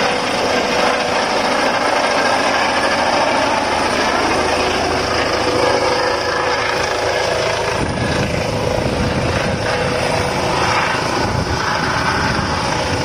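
Light helicopter with a ducted fenestron tail rotor flying low and descending to land. Its engine and rotors run with a steady whine, and a heavier low rotor beat sets in from about eight seconds in as it comes closer.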